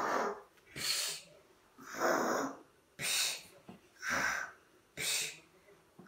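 Exaggerated snoring: drawn-out noisy breaths in and out, about one a second, with short quiet gaps between them.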